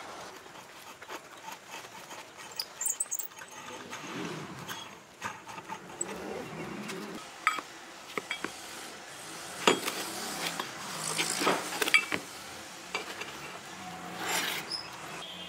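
Irregular clicks, knocks and rubbing of hard objects being handled, busiest in the middle, over a low background hiss.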